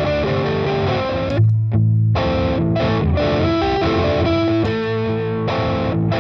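Looped electric guitar riff from a Fender Jazzmaster, played through a Klon-style overdrive at moderate gain into a Boss Katana amp's clean channel. The sound breaks off briefly about one and a half seconds in as the signal is switched to the Arc Effects Klone, which gives a raspier overdrive.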